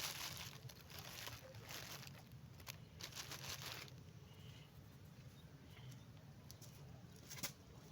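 Soft rustling and scraping of objects being handled, in four or five short bursts over the first four seconds, then a couple of light clicks.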